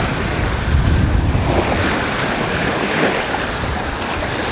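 Sailing yacht's hull pushing through choppy sea, with water rushing and splashing along the side and wind buffeting the microphone. A louder wash of water swells up about a third of the way in and eases off again.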